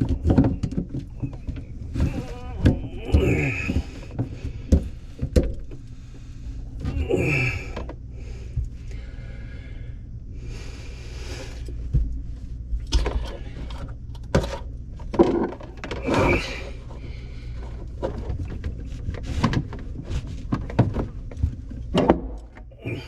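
Scattered knocks and thunks of PVC drain pipe and fittings being handled and fitted together under a sink, with a few brief mutters.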